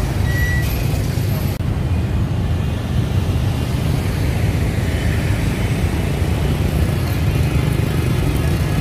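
Road traffic: a steady low rumble of vehicle engines, with a short high beep about half a second in.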